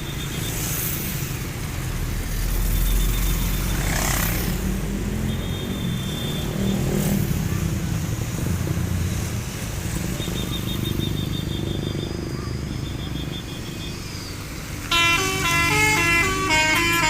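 Bus engines rumbling past. About fifteen seconds in, a Basuri V3 telolet multi-tone musical horn starts a loud melody that jumps from note to note.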